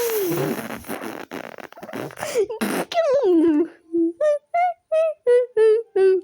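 A person's voice making goofy vocal sound effects: sputtering, hissing mouth noises, then a wobbling pitch sliding downward about three seconds in, then a run of short, quick, wavering sung notes, about three a second.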